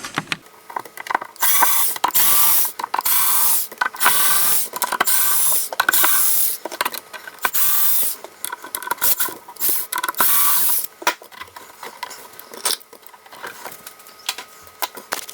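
A screwdriver backing screws out of the bottom of a Micro Seki MB-10 turntable: a run of short mechanical whirring and ratcheting bursts about a second apart, with clicks between them.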